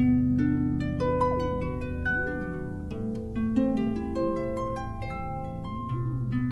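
Instrumental music: a quick run of plucked, harp-like notes over held low tones, with a wavering tone gliding up and down through it.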